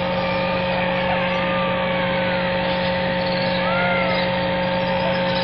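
Steady ambience of a large crowd in silent prostration, heard through a broadcast feed: an even hiss with steady electrical hum tones, and a few faint short chirps that rise and fall.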